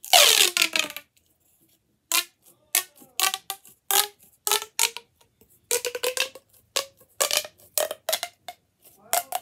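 Plastic pop tube fidget toy being stretched and squeezed. A loud first pull with a falling pitch, then a run of short, sharp pitched pops as its ridged sections snap in and out.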